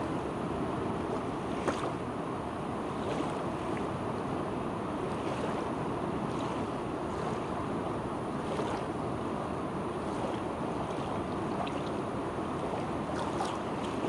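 Swollen, fast-flowing river rushing over rough, broken water, a steady even rush with brief splashes now and then.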